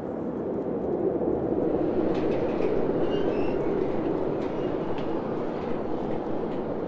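A steady low rumbling noise with faint, short high squeaks and a few light ticks.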